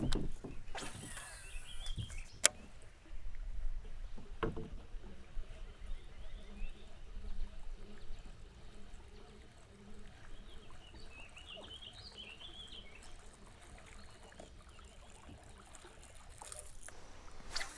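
Quiet outdoor ambience on a kayak, with a low rumble and a couple of sharp knocks about two and a half and four and a half seconds in. A bird chirps faintly near the start and again in a short run of calls about eleven to thirteen seconds in.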